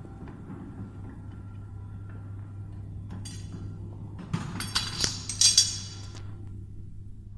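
Metal tool clinking and knocking against the CNC router's table, with a brief clatter about three seconds in and a louder run of ringing clinks near the middle, over a steady low machine hum.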